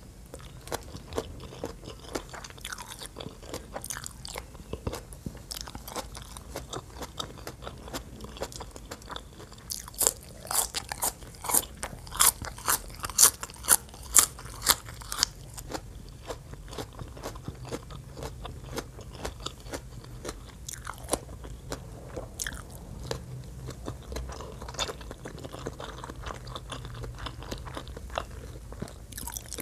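Close-miked mouth chewing and crunching on papaya salad and crisp raw vegetables. A run of loud, sharp crunches, two or three a second, comes about ten seconds in and lasts about five seconds, with softer wet chewing either side.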